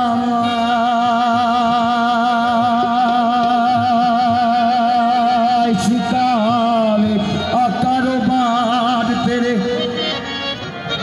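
A man singing in Punjabi into an amplified microphone. He holds one long wavering note for about six seconds, then moves into shorter, ornamented phrases with pitch slides.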